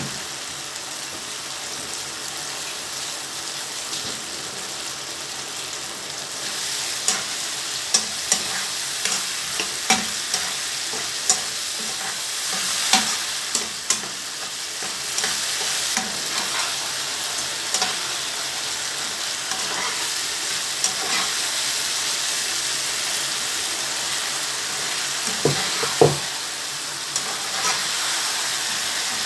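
Pepper stew of onions, tomatoes and bell pepper frying in oil, sizzling steadily, while a spoon stirs it and knocks and scrapes against the pot. The sharp irregular clicks start about seven seconds in, with a pair of louder knocks near the end.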